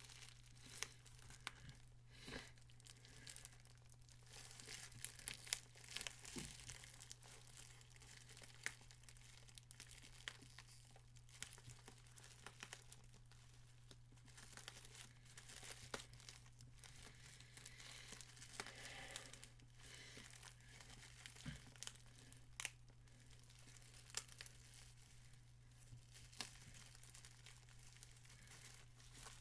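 A mailed package being opened by hand: paper and packaging tearing and crinkling, with many scattered small clicks and rustles over a steady low hum.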